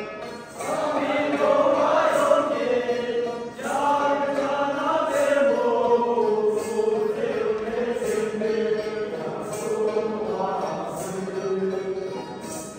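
A mixed group of young voices singing a Tibetan song together, backed by plucked Tibetan lutes (dranyen), with a steady beat.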